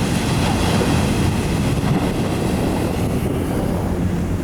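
Steady wind rumble on the microphone over ocean surf, with the even drone of a boat motor running underneath.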